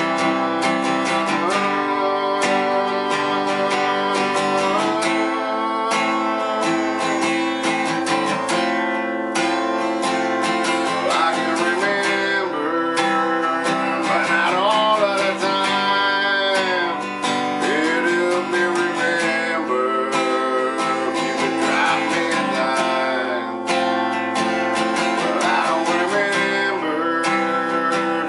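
Acoustic guitar strummed in a steady rhythm, chords ringing continuously.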